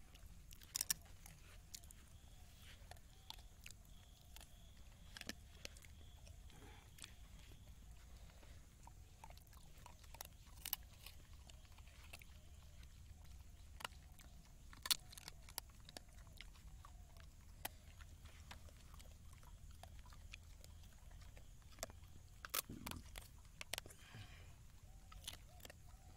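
A dog chewing and crunching leftover chicken leg bones. It comes as faint, irregular sharp crunches every few seconds.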